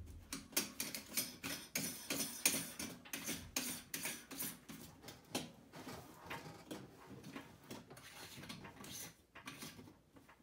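Clicking and scraping as the nut of a sink drain strainer is spun by hand up its threads against a stainless steel sink bowl. Several small clicks a second, louder at first and fainter in the second half as the nut snugs down.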